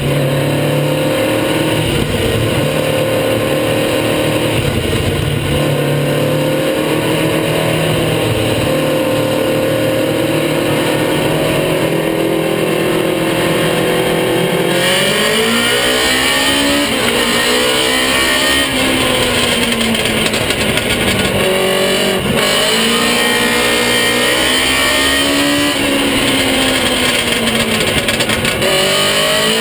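Baby grand race car's engine heard from inside the cockpit, running at steady, even revs for about the first half, then revving up and down repeatedly, its pitch rising and falling.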